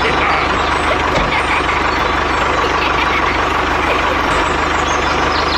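Small engine of a homemade mini tractor wood saw running steadily, with a fast, even low chugging pulse.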